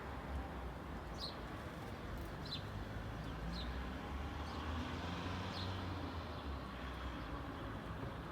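Steady low hum of distant traffic, with a bird giving about four short, high chirps over the first six seconds.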